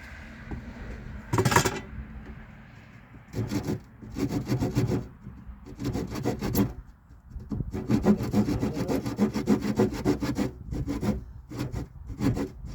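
Handsaw cutting across a wooden step board in short spells of quick back-and-forth strokes, with brief pauses between them and the longest run of strokes about halfway through.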